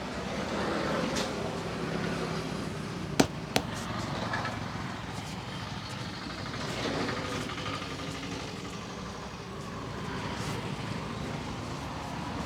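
Steady roadside traffic noise. About three seconds in come two sharp snaps, a third of a second apart.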